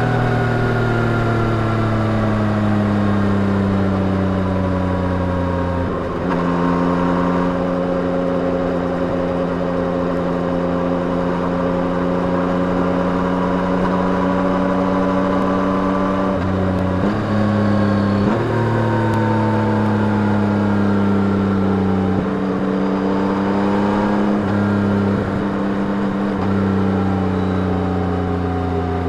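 2021 Yamaha MT-09's three-cylinder engine running through its stock exhaust under way, over wind and tyre noise. The engine note slowly sags in pitch and is broken by several abrupt jumps in pitch.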